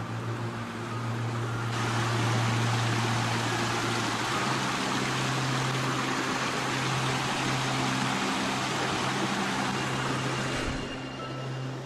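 Small rocky forest brook rushing over stones, a steady rush of water that comes in suddenly about two seconds in and cuts off near the end. Low sustained music tones run underneath.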